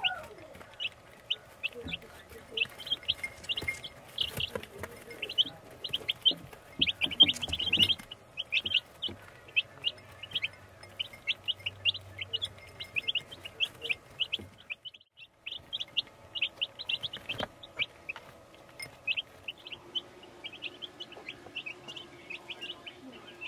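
A brood of week-old chicks peeping: many short, high cheeps in quick succession, with a brief break about fifteen seconds in.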